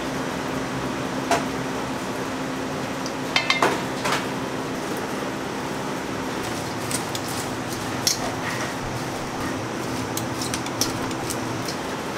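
Metal ladle and tongs clinking against a large stainless steel mixing bowl while chili paste is tossed into cut garlic chives, over a steady kitchen hum. One sharp clink about a second in, a quick run of three around three and a half seconds, then lighter clicks as the tongs mix.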